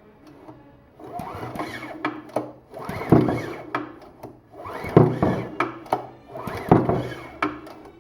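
Small engine cranked over by its pull-start cord about four times, roughly every two seconds, each pull a brief whirring rush with clicks. It turns over without running because the spark plug is out and grounded on the engine for a spark test.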